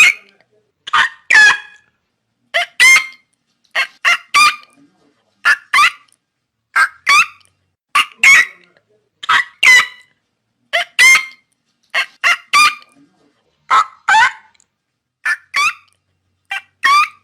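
Pelican calls: short, pitched calls, mostly in pairs, repeating about every one and a half seconds with silence between.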